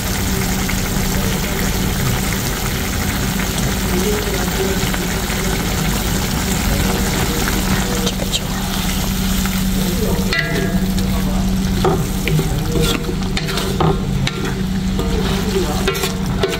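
Wooden spatula stirring coconut milk and aromatics in a hot wok, the liquid sizzling steadily over a constant low hum. From about halfway through, the spatula knocks and scrapes against the wok in short, repeated strokes.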